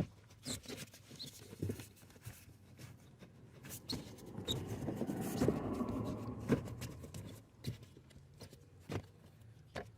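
Scattered plastic clicks and knocks as a cabin pollen filter is handled and seated in its plastic housing, with a sharp click at the very start and a few seconds of rustling and scraping around the middle.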